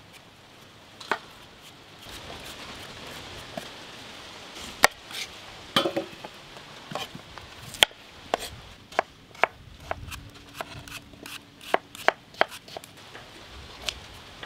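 Apples being peeled with hand vegetable peelers: irregular crisp clicks and scrapes of the blade cutting through the skin, sparse at first and coming in a quicker run in the second half.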